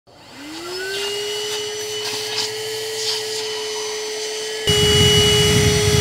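Handheld car vacuum cleaner switching on, its motor whine rising in pitch over the first second and then running steadily. Near the end the sound abruptly becomes louder, with a low rushing rumble added under the whine.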